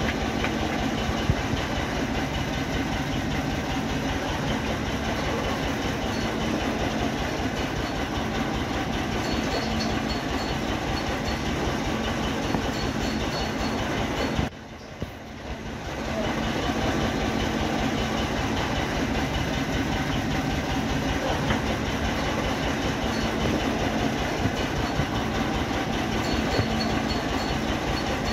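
Isuzu 4JA1 four-cylinder diesel engine running with a steady, even diesel clatter and hum. The sound drops away briefly about halfway through, then returns.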